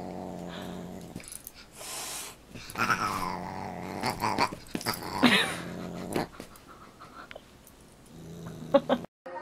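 A dog growling low and steadily in a play-fight with a cat, in several stretches, with two louder, higher cries about three and five seconds in.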